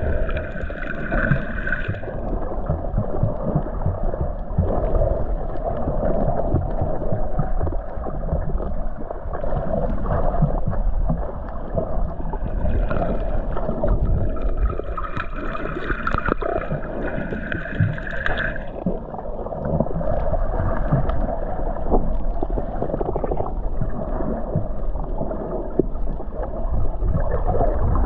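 Muffled underwater noise picked up by a submerged camera: a dull low rumble of moving water with scattered crackles and clicks. Twice, near the start and again in the middle, a brighter hiss swells up over it and fades.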